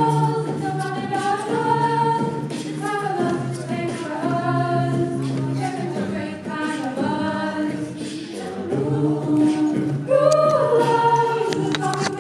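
A group of singers performing in harmony, several voices moving together over long-held low notes, with no clear words.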